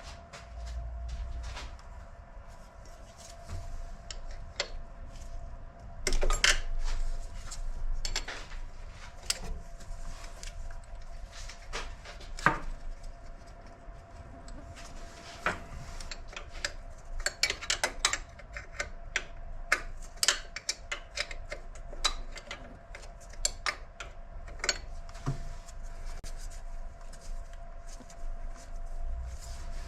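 Metal hand tools clinking and tapping against engine parts: scattered sharp metallic clicks, some in quick runs of several clicks, as bolts are worked loose.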